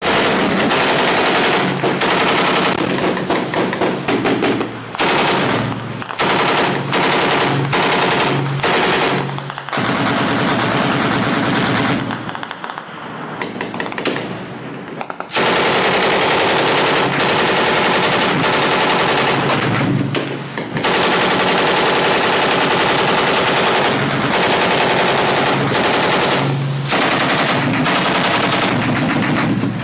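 Sustained automatic-weapon fire in long, near-continuous bursts broken by short gaps, with a quieter lull of about three seconds near the middle.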